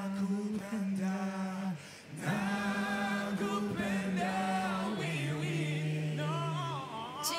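Voices singing long held notes in a choral, a cappella style, with a short break about two seconds in and a step down to a lower held note about five seconds in.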